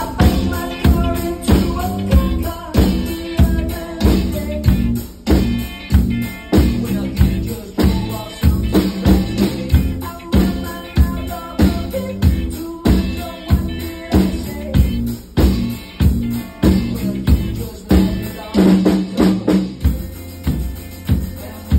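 Pearl drum kit played in a steady beat along with a backing track, with strong hits about twice a second.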